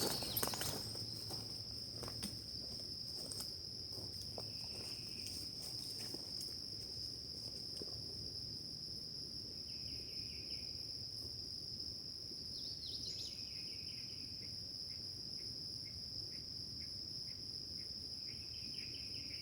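Insects trilling steadily in one continuous high-pitched drone, with a few short, faint chirps now and then.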